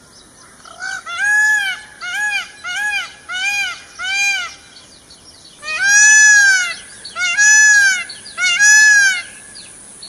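Peacock (Indian peafowl) giving a series of rising-and-falling loud calls: about six short ones in quick succession, then three longer, louder ones.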